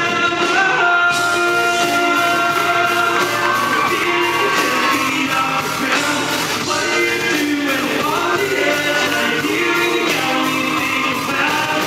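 A male pop singer singing live into a handheld microphone over a full band.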